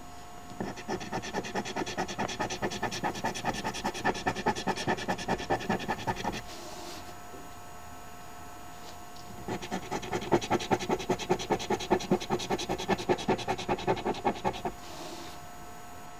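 A coin scratching the coating off a paper scratch-off lottery ticket in two bouts of quick back-and-forth strokes, each about five seconds long, with a pause of about three seconds between them.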